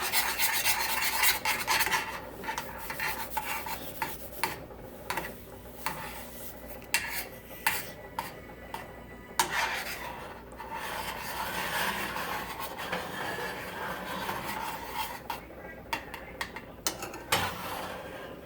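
A utensil stirring and scraping a thick cornstarch and sweetened-condensed-milk mixture around a saucepan. It makes a continuous rasping with scattered clicks against the pan, louder in the first two seconds and again in the middle.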